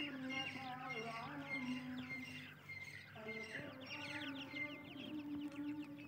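Francolin chicks cheeping: many short, high, falling peeps overlapping one another, thickest in the second half, over low sustained tones.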